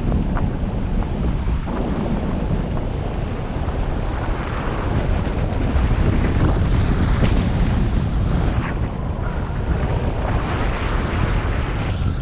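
Wind buffeting the microphone of a camera mounted on a hang glider in flight: a loud, steady rush, heaviest in the low end and flickering with gusts.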